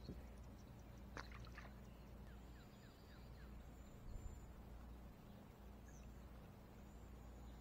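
Near silence: faint outdoor ambience on calm water, with two soft knocks early on and a few faint, short, high chirps.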